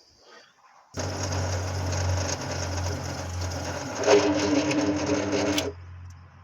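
Electric power tool running on wood for about five seconds, louder about four seconds in, then its motor switches off and winds down.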